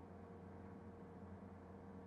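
Near silence: a faint, steady hum of room tone.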